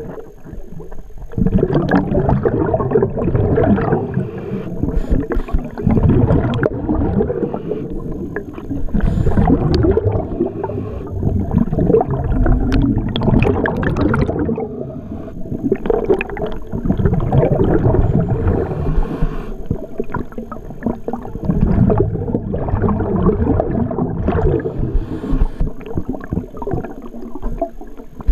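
Muffled underwater water noise picked up through a camera's waterproof housing: low gurgling and rushing of water as the camera moves along the lake bottom, swelling and easing every few seconds.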